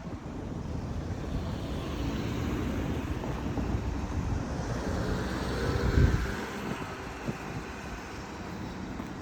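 A vehicle passing by, its noise building steadily to a peak about six seconds in and then fading, with wind buffeting the microphone.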